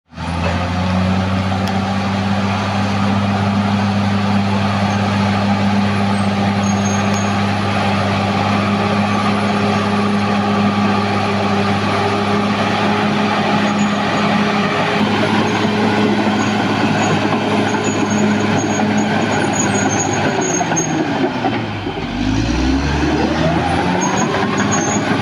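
Caterpillar D6R XL bulldozer's diesel engine running steadily at working revs. About twenty seconds in, the engine speed drops sharply and then climbs back up within a few seconds.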